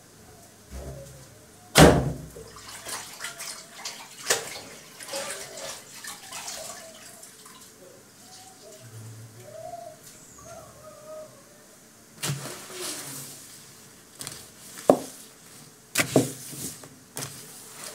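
Dishes being washed by hand: water splashing and utensils knocking and clattering against each other and the basin, with a sharp knock about two seconds in the loudest. Near the end a glass jar is set down on the table close by with a knock.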